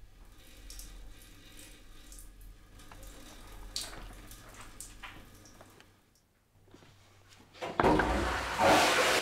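Faint running water, then about eight seconds in a sudden loud rush of water from a toilet flushing.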